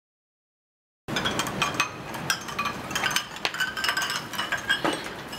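Ceramic bowls and dishes clinking and knocking against each other in a washing basin. The quick, irregular clinks start about a second in.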